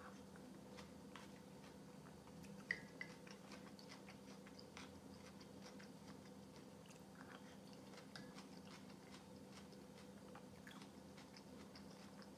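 Faint close-up mouth sounds of a person eating spoonfuls of kholodnik, a thick cold beet soup: soft chewing with small wet clicks, and two sharper clicks close together a little under three seconds in.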